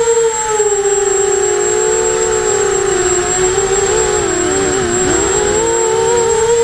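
Eachine 250 Racer quadcopter's motors and propellers whining in flight, several close pitches wavering up and down with the throttle, dipping briefly about five seconds in and rising back. A thin, steady high-pitched tone runs over it.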